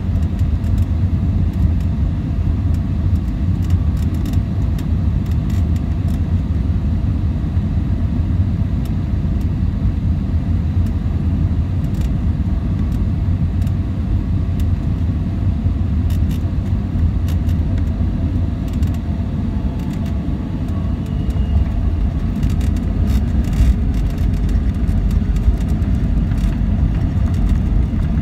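Steady low rumble of an Airbus A320's engines and airflow heard from inside the cabin on final approach. Near the end the rumble grows a little louder with scattered rattles as the airliner touches down and its spoilers come up on the runway.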